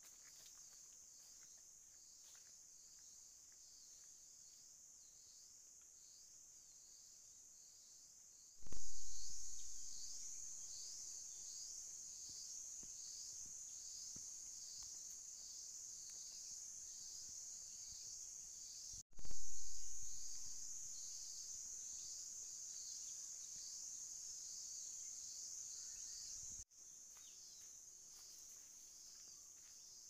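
High-pitched insect chorus in the forest, a steady pulsing buzz. It jumps suddenly louder about nine seconds in and again about nineteen seconds in, then drops back near the end.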